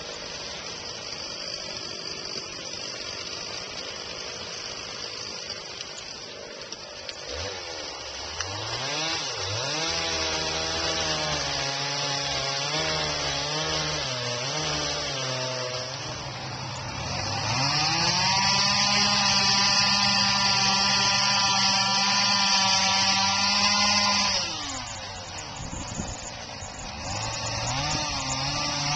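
Gas chainsaw cutting into a large wooden stump. After several seconds of steady hiss, the saw revs up and wavers in pitch as it bites. It then runs at full throttle for several seconds, drops off briefly about three-quarters of the way through, and revs up again near the end.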